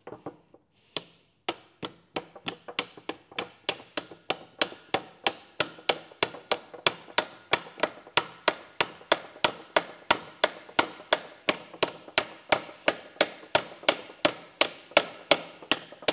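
Bearing outer track being tapped into the Sunbeam 1000HP's gearbox casing with a hammer: a long, even run of sharp light taps, about three a second, starting a second or so in.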